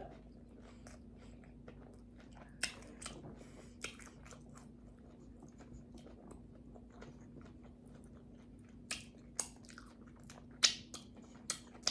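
Close-up eating sounds of tacos being chewed: scattered short, wet mouth clicks and small crunches, sparse at first, nearly quiet in the middle, then coming more often in the last few seconds.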